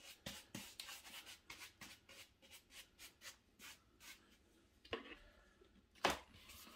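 A paintbrush scrubbing matte medium glue onto a textured scenery base: faint, quick rubbing strokes, about four or five a second. Two louder knocks follow, about five and six seconds in.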